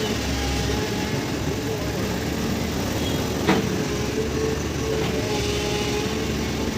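Hydraulic excavator running steadily under work, its engine and hydraulics giving a constant drone with a faint held whine, and a single sharp knock about halfway through.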